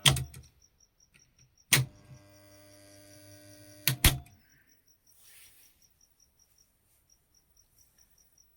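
Repaired single-phase panel board switching: a sharp click as it cuts off, another click about two seconds in as it switches back on with a steady mains hum, then a click about four seconds in as it cuts off again and the hum stops. The clean on-off switching shows the repaired connector section now working.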